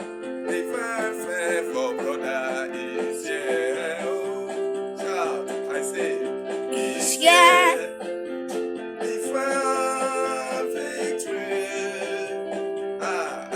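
Music: a singing voice with vibrato over sustained held chords, with a loud high sung note about seven seconds in.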